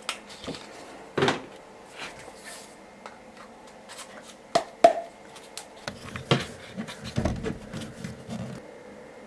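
Handling noise of plastic and chrome bath waste parts being fitted by hand: a scatter of sharp clicks and knocks with rubbing and rustling between them.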